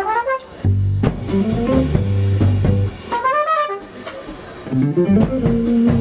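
Live jazz band with electric guitar, bass guitar and drum kit jamming in 9/8. The guitar plays two quick rising runs, near the start and about halfway, over the bass and drums.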